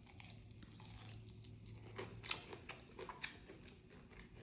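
A person chewing a bite of fried chicken wing: faint crunchy clicks and mouth sounds, coming more often in the second half.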